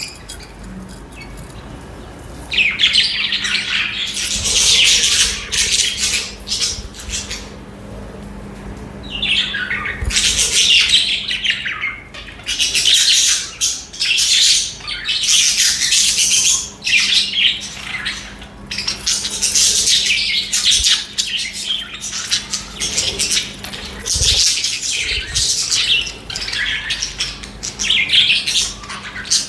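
Budgerigars chirping and chattering in dense, warbling bursts that come and go with short lulls between.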